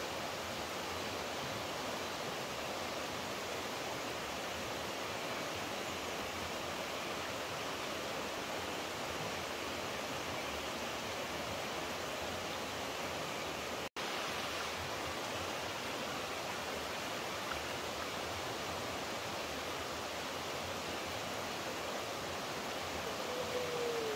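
Steady rushing noise of running water, like a stream. The sound cuts out for an instant about halfway through, and a short falling whistle-like tone begins at the very end.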